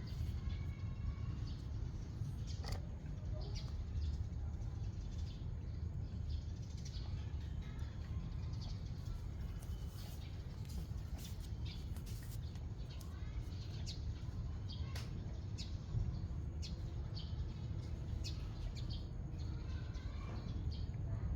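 A steady low rumble with scattered short, high chirps and clicks throughout.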